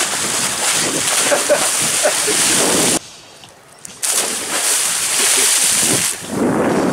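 Splashes of people plunging off a jetty into harbour water, over steady wind noise on the microphone. The sound drops out abruptly for about a second a third of the way through.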